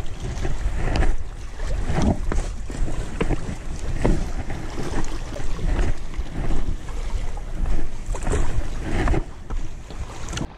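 Wind buffeting the microphone in a steady low rumble, with irregular scuffs and knocks of shoes and hands on rock as someone clambers over a rocky shoreline.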